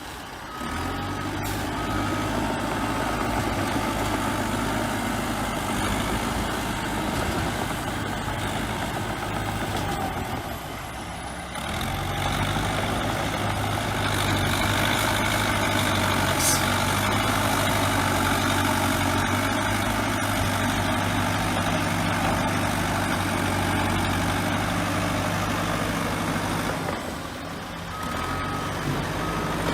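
Bulldozer diesel engine running steadily under work. A reversing alarm beeps a few times near the start and again near the end.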